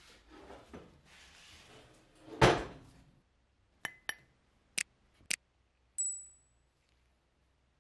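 Wooden workbench vise being wound, its screw and handle rubbing, with one loud knock about two and a half seconds in. Then the sound effects of a subscribe-button animation: four sharp clicks followed by a short high bell ding.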